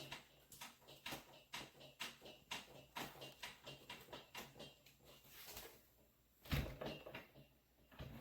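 Faint clicks and knocks, about two a second, with one louder thump about six and a half seconds in.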